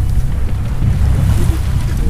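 Strong wind buffeting the microphone in a heavy, steady low rumble, over the rushing hiss of sea water around a sailboat under way.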